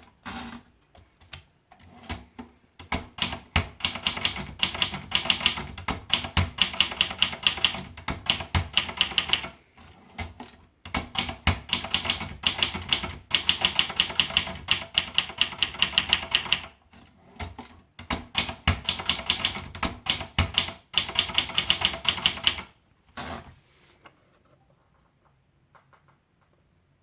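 Triumph Tippa portable manual typewriter being typed on: runs of rapid keystrikes, several a second, broken by short pauses, stopping about three quarters of the way through.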